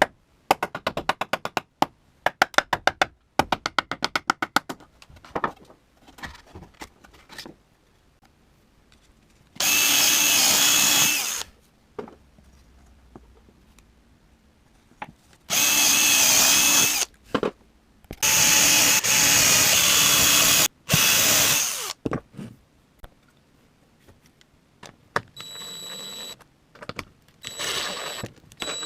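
Power drill running in four loud bursts of one to two seconds each, with fainter runs of quick clicking before them near the start.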